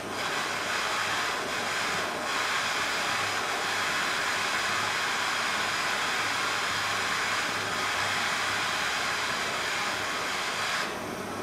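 Blow lamp flame hissing steadily as it reheats a thin phosphor bronze rod, then dropping in level shortly before the end.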